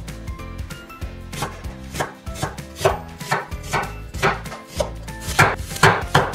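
Kitchen knife slicing an onion thinly on a wooden cutting board: a crisp chop against the board on each stroke, about two a second, the last few the loudest.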